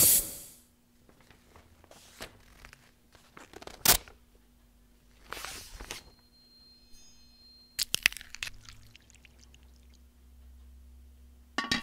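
A loud blast-like noise dies away in the first half second. Then a metal spoon works through corn flakes in milk in a glass bowl: scattered soft crunches and clicks, a sharper click about four seconds in, and a cluster of clinks near the end.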